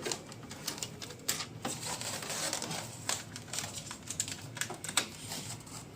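Irregular light clicks and crinkling rustles, the sound of packaging being handled and pulled apart during the refrigerator unboxing.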